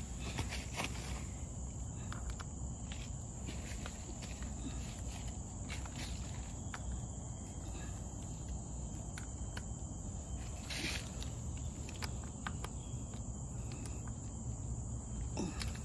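Steady high-pitched insect drone from the surrounding forest over a low rumble, with scattered clicks and rattles of a mountain bike rolling along a dirt trail.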